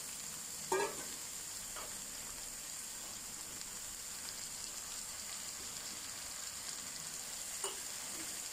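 Shredded cabbage and carrot sizzling in hot oil in a wok as they are tipped in: a steady hiss, with a short knock about a second in and a smaller one near the end.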